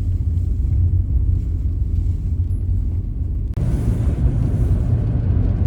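Car cabin noise while driving: a steady low engine and road rumble. About three and a half seconds in, a louder hiss of tyre and road noise suddenly joins it.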